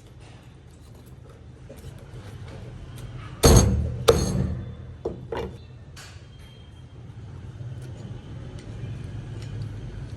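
A handful of sharp knocks and clinks of dishes and utensils, the loudest about three and a half seconds in and the rest following over the next couple of seconds, over a steady low hum.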